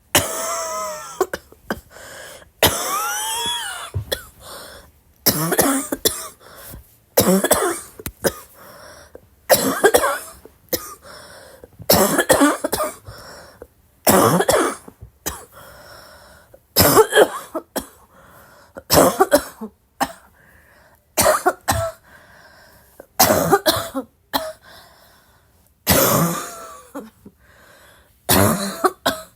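A person coughing over and over, about twenty loud coughs, often two in quick succession, every second or two. Some coughs carry a voiced, throaty tone.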